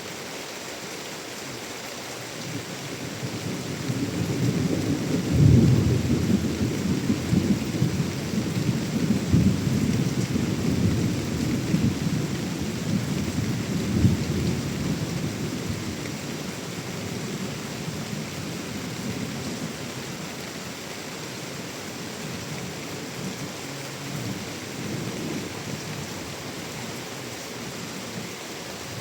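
Steady monsoon rain with a long roll of thunder. The thunder builds about three seconds in, is loudest around five seconds in and again near the middle, then dies away, leaving the rain alone.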